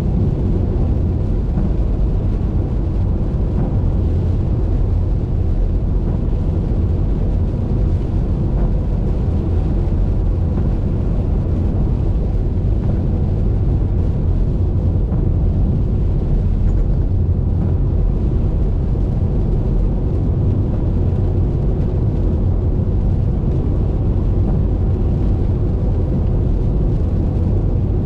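Steady low rumble of a car driving at highway speed: road and wind noise, even throughout.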